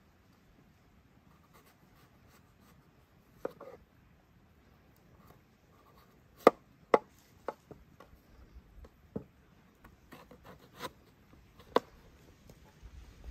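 Knife cutting through raw turnips on a cutting board: a series of sharp, separate knocks of the blade meeting the board, irregularly spaced and mostly in the second half.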